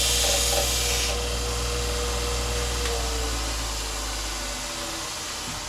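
Bucktool 2x42 benchtop belt grinder grinding the steel bevel of an axe bit: a hissing grind that stops about a second in, leaving the motor and belt running on with a steady hum. About three seconds in, the motor's tone drops and the hum fades as the grinder winds down.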